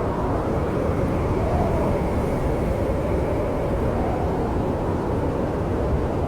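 Steady, low rumbling snowstorm wind mixed with a fireplace, with no sharp crackles standing out.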